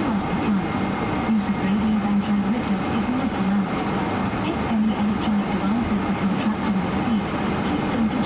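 Boeing 777-300 cabin noise during pushback: a steady rushing drone with a low hum that wavers up and down in pitch.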